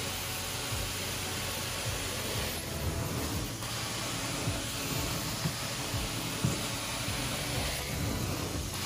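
Hot water extraction carpet-cleaning wand spraying and sucking water back up as it is drawn across carpet: a steady rushing hiss of suction over a low machine hum. The hiss thins briefly about three seconds in and again near the end, as the stroke changes.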